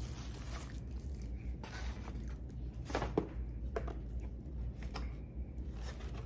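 Eating sounds: chewing with a handful of short, sharp utensil taps and clicks, over a steady low hum.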